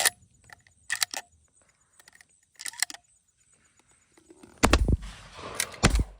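Two shotgun shots about a second apart, the loudest sounds here. Before them come a few short clicks and rattles, like handling of gear or shells.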